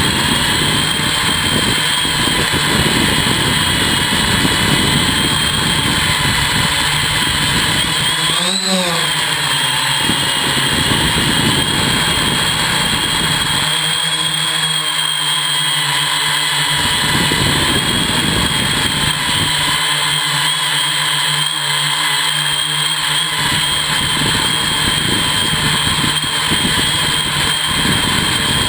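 Hexacopter's electric motors and propellers whining steadily, heard from a camera mounted on the frame, over a low rumble. The pitch swells up and back down briefly about eight seconds in, and the low rumble thins out twice in the middle.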